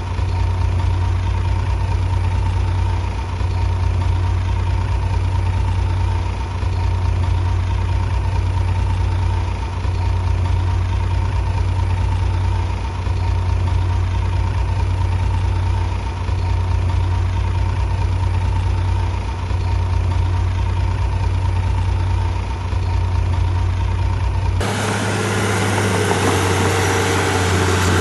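Heavy earthmoving machine's diesel engine running steadily, a deep drone with a slight dip about every three seconds. About 25 seconds in it cuts off abruptly to a different, brighter clattering noise.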